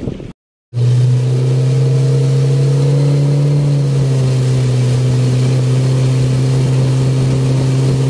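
Outboard motor running steadily at cruising speed: an even drone with water and wind hiss under it. Its pitch drops slightly about four seconds in.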